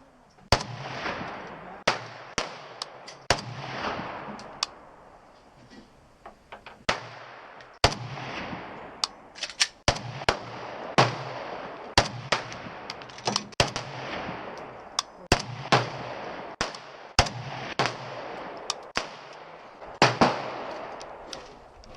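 Gunshots fired at an irregular pace, roughly one a second and sometimes two in quick succession, some sharp and loud and others fainter, each trailing off in a short echo.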